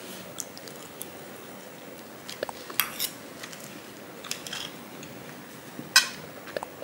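Knife and fork clinking and scraping against a plate while cutting pancakes, a scatter of short taps with the loudest clink about six seconds in.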